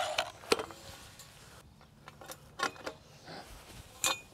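A cordless band saw winding down at the very start, then a handful of scattered light metallic clicks and clinks as steel chain-link rail pipe and the saw are handled.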